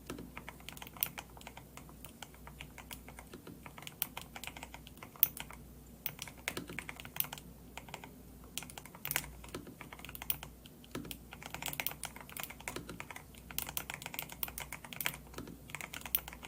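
Mechanical keyboard typing on a DAREU A104 PRO 8K with Gateron Silver linear switches and clear keycaps: fast, irregular keystrokes with the occasional louder single key strike.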